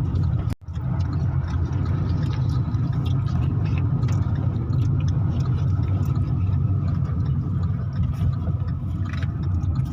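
Steady low rumble of a vehicle's engine and road noise, heard from on board while driving, with a brief dropout about half a second in.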